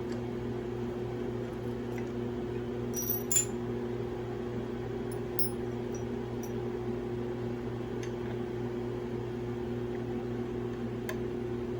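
An electric shop machine's motor running at a steady, even hum, with a couple of light metallic clicks about three seconds in.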